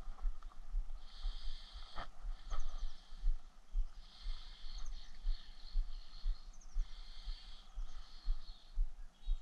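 Wind rumbling on the microphone, with a high buzzing call repeated in bursts about a second long, and two sharp clicks about two seconds in.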